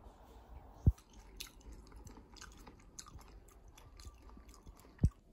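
Close-up chewing of food, with many small crisp crunches. Two sharp low thumps, about a second in and again near the end, are louder than the chewing.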